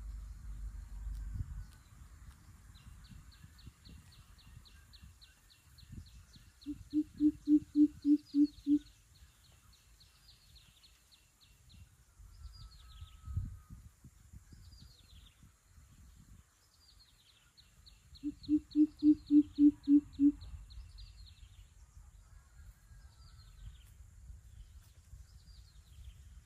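Coucal giving its deep hooting call: two bouts of about seven or eight low, evenly spaced hoots, roughly ten seconds apart. Smaller birds sing high, fast trills and short falling notes throughout.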